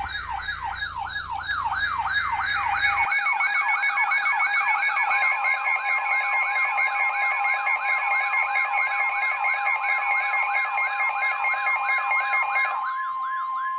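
Electronic alert tones for a tornado warning: a fast siren-like yelp sweeping up and down about three times a second. A second warbling layer joins about two seconds in, and a steady weather-radio warning alarm tone starts about five seconds in. All of it cuts off near the end.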